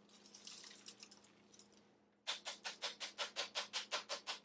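Dirt and debris being emptied from a cordless stick vacuum's plastic dust cup: a soft hissing rustle as it pours out, then, about two seconds in, a quick steady rattle of about six strokes a second as the cup is shaken.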